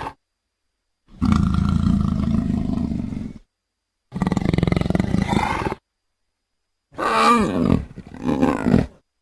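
Leopard vocalising: two long, low, rasping calls, then a shorter growl in two parts with a wavering pitch near the end. Each call stops abruptly, with dead silence between.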